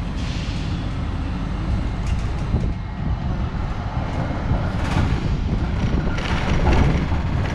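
Melbourne Z-class tram running along the street, a steady low rumble of wheels and motors, with clattering and rattling picking up from about five seconds in.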